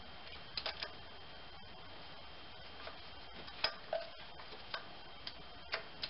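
Sparse light metallic clicks as a wrench turns the camshaft sprocket with a new timing chain fitted on a GM 2.2L Ecotec engine. There are three quick clicks a little over half a second in, then single clicks every second or so.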